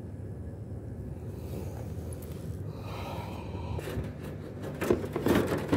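Sheet-metal casing of an air-conditioner condenser unit being handled, with several knocks and rattles about five seconds in, over a steady low hum.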